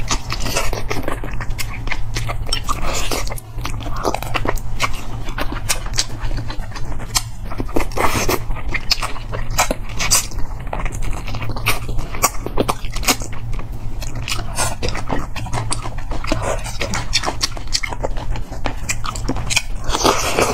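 Close-miked chewing and biting of soy-braised forest frog held in the fingers, a dense run of irregular wet smacks and small crunchy clicks as the meat is bitten and worked off the small bones, over a steady low hum.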